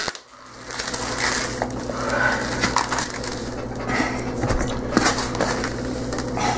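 Raw ground beef being tipped out of its plastic packaging tray into a stainless steel mixing bowl, with irregular crinkling and crushing of the plastic. A steady low hum runs underneath.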